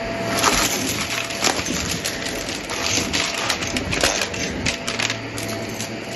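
Shark vacuum cleaner running on carpet and sucking up small Dippin' Dots-type beads. The beads make a rapid, irregular stream of crunchy clicks and rattles over the steady motor hum, busiest in the first few seconds and thinning out near the end.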